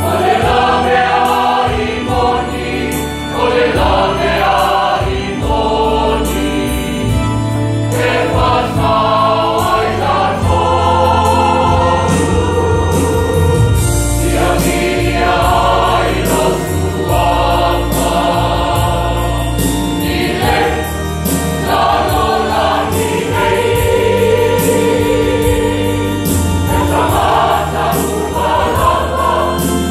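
Church choir singing a gospel song, accompanied by an electronic organ with long held bass notes that change every second or two.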